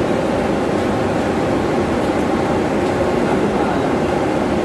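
Steady, loud drone of running fan and blower machinery in a mechanical equipment room: a continuous hum that neither starts nor stops.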